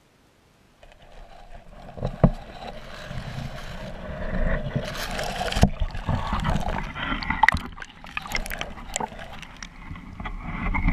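Muffled water sloshing and gurgling around an underwater camera as it is raised and breaks the surface, with sharp knocks of the camera housing being handled. Near silence for about the first second, then the noise builds.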